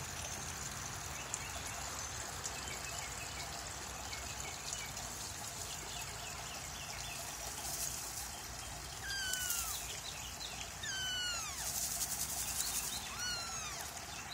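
Steady trickle of a garden water feature, with a kitten mewing several times in the second half, each a short call that falls in pitch.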